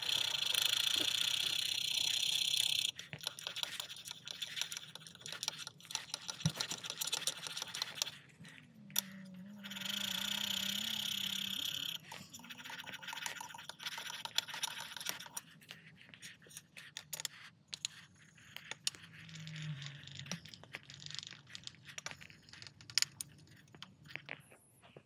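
Steel plane iron held in a roller honing guide being rubbed on fine abrasive paper on glass: a steady rasping hiss in two runs of about three and two seconds, the edge being honed and cambered with scary sharp paper. Between the runs come scattered clicks and light scrapes as the guide and blade are shifted and set down.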